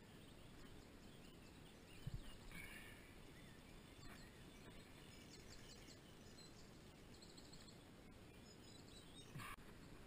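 Near silence: faint lakeside ambience with a low rumble of wind on the microphone and a few faint high bird chirps. There is a soft knock about two seconds in and a brief sharper knock near the end.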